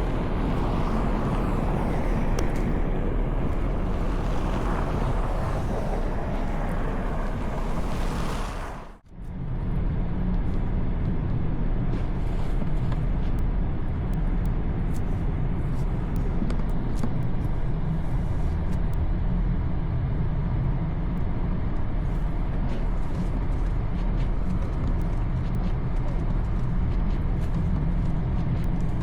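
Steady street and vehicle noise. About nine seconds in it cuts to a heavier, lower rumble.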